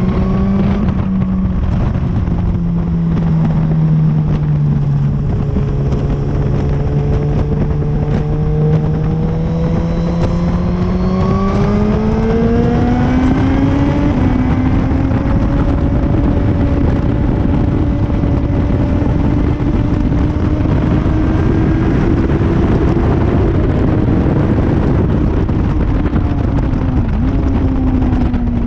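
Motorcycle engine running hard under a steady rush of wind noise. Its note sags a little over the first several seconds, climbs steadily from about ten seconds in as the bike accelerates, then holds high before easing off near the end.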